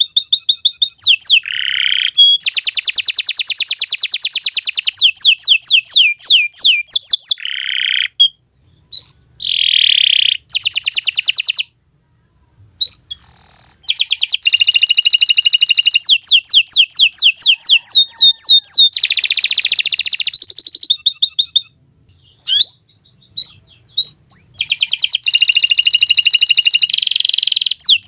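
Domestic canary singing a long, loud song of fast trills and rolls: quick runs of repeated high notes, with three short breaks.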